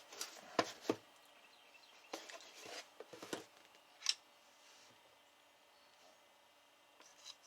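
Handling noises: a few short clicks and rustles in the first four seconds, the sharpest about four seconds in, then faint room tone.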